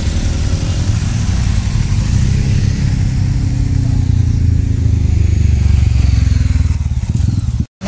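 Adventure motorcycle engines running with a steady, heavy low rumble as a bike rides off along the road, its engine note easing down in the first few seconds. The sound cuts off suddenly near the end.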